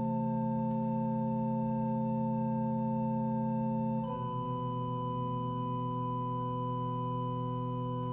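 Organ playing sustained chords, one chord held and then changing to another about four seconds in.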